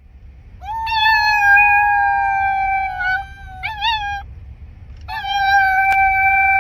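A dog howling: two long, steady held howls with a short wavering call in between.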